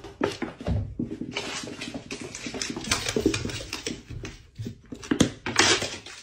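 Two cats scuffling and wrestling on a wooden floor: a rapid, irregular run of knocks, thuds and scrapes.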